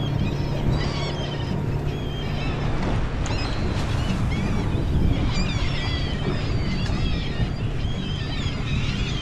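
A flock of seabirds calling over a striped bass blitz, many short, high, overlapping cries throughout, the birds working the baitfish pushed up by the feeding fish. Underneath, a boat engine's steady low hum and the wash of wind and water.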